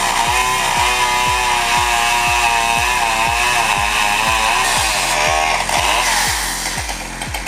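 Chainsaw engine running at speed, its pitch wavering and ending in a brief rise in pitch about two-thirds of the way in. Background music with a steady bass beat, about two a second, plays along with it.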